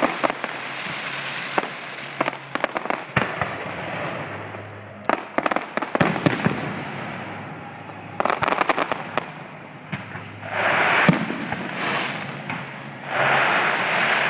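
Fireworks going off: clusters of rapid sharp cracks and bangs, then two longer bursts of dense crackling hiss near the end.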